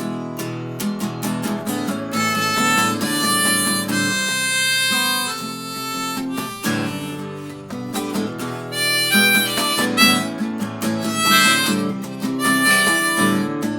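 Instrumental break in a song: a harmonica playing a melody of held notes over strummed acoustic guitar, the harmonica coming in about two seconds in.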